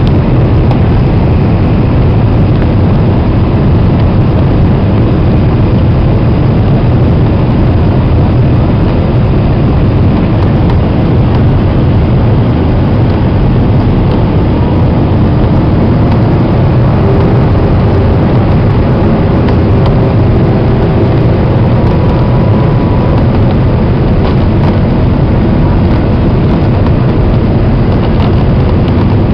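Steady, loud cabin noise inside a Boeing 767-300 on its landing approach: the wing-mounted turbofan engines and the airflow give a constant deep rumble with a hiss above it.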